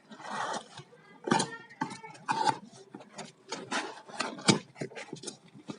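Cardboard shipping box being opened by hand: irregular tearing, scraping and rustling of tape, cardboard and packaging, with a few sharper rips.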